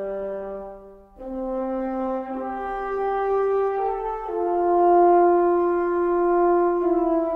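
Background music: a slow melody of long held, horn-like notes that change every second or two, with a brief drop about a second in.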